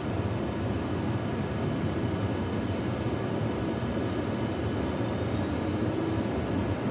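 Tram running along its rails, heard from inside: a steady low rumble of wheels and running gear with a faint steady whine from the electric drive.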